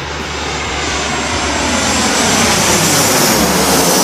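Boeing 737 airliner on landing approach passing low overhead: the jet engines' rushing noise builds steadily to its loudest as the plane crosses overhead near the end, with a high whine that begins to drop in pitch.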